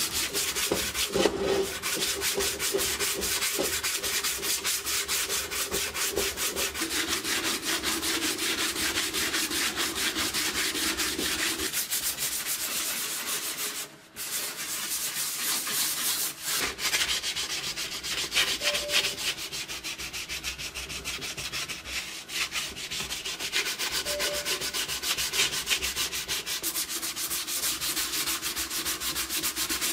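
Hand sanding block rubbed rapidly back and forth over the steel shell of a Romanian M39 helmet, a steady run of scratchy strokes, broken once for a moment about halfway through.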